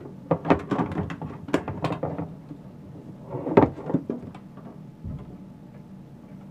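Handling noise from a pop-up chicken toy box: a run of clicks and knocks as its lid is pushed shut over the chicken, then a louder knock about three and a half seconds in.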